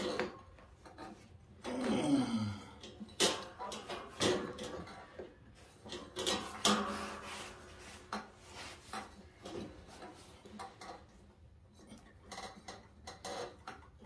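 Irregular metallic clunks, clicks and scraping as a V-belt is worked by hand onto the steel pulleys of a John Deere mower deck and the spring-loaded idler arm is pushed for slack.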